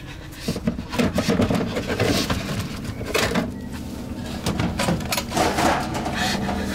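Hand rummaging through objects on a wooden shelf: a quick run of knocks, clicks and rustling, then a few more handling knocks. A low sustained music tone comes in near the end.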